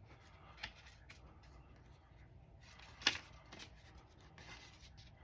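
Faint rustling of paper sketch cards being handled and turned over, with a few light clicks, the sharpest about three seconds in.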